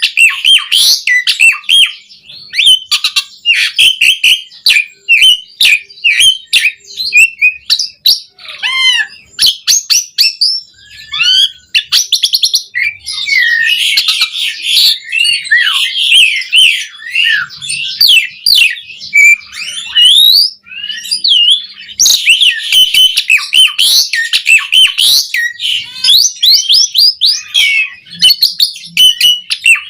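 Jalak suren (pied starling) singing a long, unbroken run of rapid, varied chirps, whistled glides and harsher notes. The song is packed with many different phrases, the way a bird in full song sounds.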